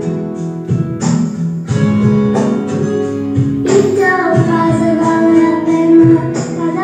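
Song with a woman singing over acoustic guitar.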